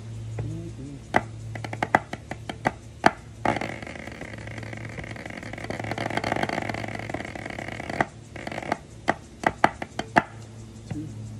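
Drumsticks striking a practice pad on a snare stand: crisp single strokes and short quick figures, then a fast roll held for about four and a half seconds, then more separate strokes. A steady low hum runs underneath.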